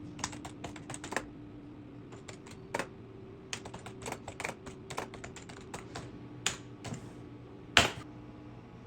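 A run of quick, irregular light clicks and taps, the loudest one near the end, over a faint steady hum.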